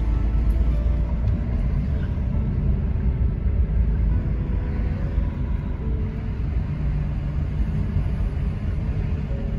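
Steady low road and engine rumble of a car driving along, heard from inside the cabin.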